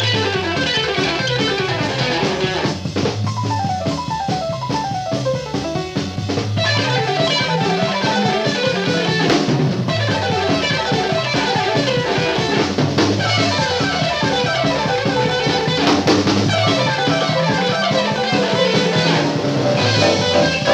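Instrumental band music: electric guitar playing quick runs of notes over a drum kit.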